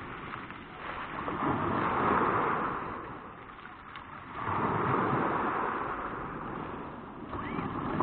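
Small Black Sea waves breaking on a pebble beach. Each wash swells up and fades over a couple of seconds: one peaks about two seconds in, the next rises about halfway through, and a third starts near the end.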